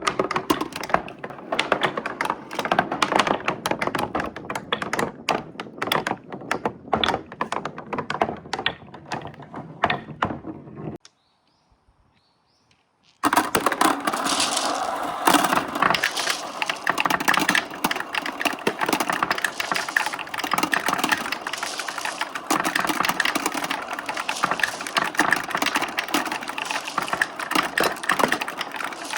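Many glass marbles clattering and clicking against each other and along a marble run track, a dense, continuous rattle. It cuts out for about two seconds around the middle, then starts again just as busy.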